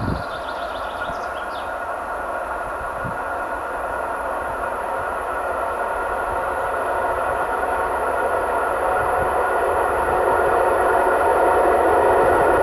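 A 2M62UM diesel locomotive hauling a freight train approaches along the track. Its steady running rumble grows gradually louder.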